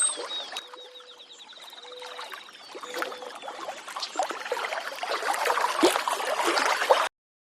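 Sunrise alarm clock's built-in nature-sound alarm playing: short chirps and a fast trill over a trickling water sound that grows louder, then cuts off suddenly about seven seconds in.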